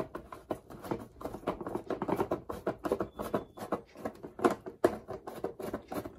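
Phillips screwdriver turning a small screw out of a plastic disc on a cardboard box: a quick, irregular run of small clicks and scratches.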